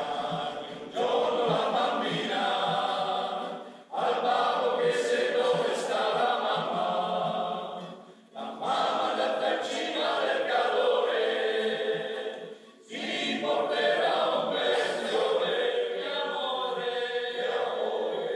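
Choir singing in phrases of about four seconds, each ended by a brief pause before the next.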